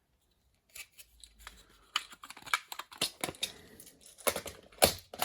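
Small watchmaker's assortment boxes being handled and opened, giving a run of sharp, irregular clicks and rustles that starts about a second in.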